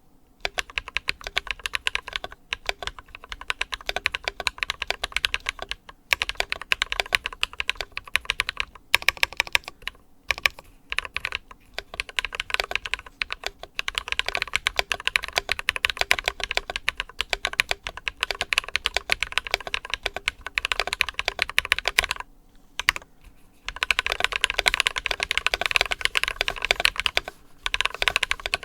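Typing on an ID80 mechanical keyboard with foam-dampened case, lubed Glorious Panda tactile switches and PBT cherry-profile keycaps: fast, continuous keystrokes, with a short break about three-quarters of the way through.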